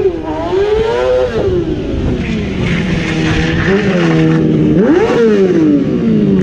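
Sport motorcycle engine revving up and down repeatedly, with the sharpest rise and fall about five seconds in and steady lower stretches in between.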